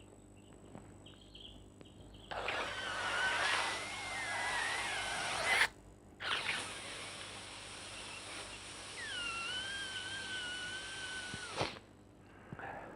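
A person drawing air in hard through a pinched nose with the mouth closed, twice: a reverse ear-blowing manoeuvre, which makes suction in the nasopharynx to pull fluid from the Eustachian tubes back into the throat. The first draw lasts about three seconds and the second about five. Both are breathy hisses with a thin wavering whistle.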